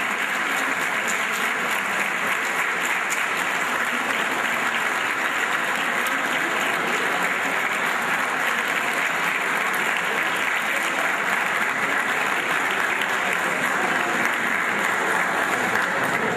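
Many people applauding steadily: a chamber full of legislators clapping at once.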